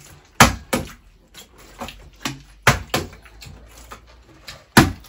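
A flipped bottle landing on a hard surface: five sharp knocks, two close together about half a second in, two more near the middle, and the loudest near the end.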